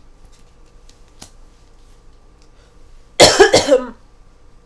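A person coughing in one short fit of a few coughs about three seconds in. Before it there are only faint ticks from photocards being handled.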